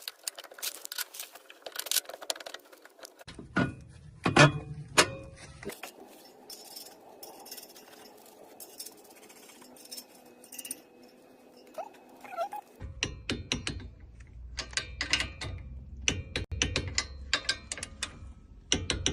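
Repeated sharp metallic clicks and knocks from hand tools and car parts being handled, with the background changing abruptly a few times.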